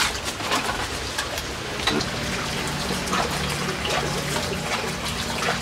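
Steady running water, like a tap pouring into a basin, with a few faint knife taps on a wooden chopping board as a snakehead fish is cut. A low hum joins about two seconds in.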